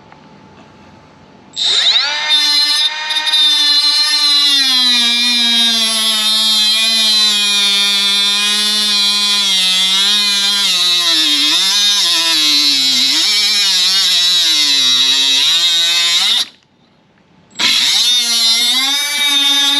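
Cordless power tool whining at high speed as it cuts through plastic bumper trim, its pitch dipping and wavering as it bogs under the load of the cut. It stops for about a second near the end, then starts again briefly.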